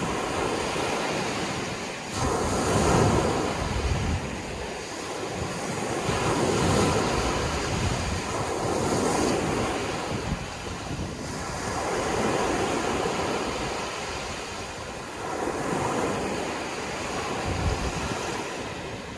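Sea waves surging in and washing back, the surf swelling and easing every few seconds.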